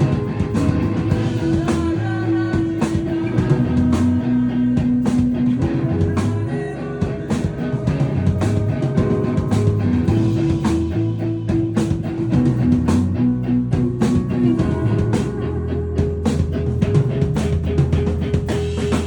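Live rock band playing loud with drum kit, electric guitar and bass: steady drum hits over held bass and guitar notes, cutting off sharply together at the end as the song finishes.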